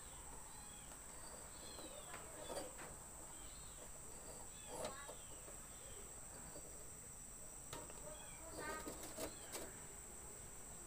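A steady high insect drone, like crickets, with scattered short chirping animal calls over it and a few faint clicks.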